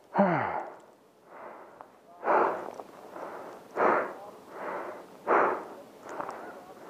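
Heavy breathing close to the microphone: a voiced sigh that drops in pitch at the start, then a steady rhythm of hard exhales alternating with softer inhales, about one full breath every second and a half.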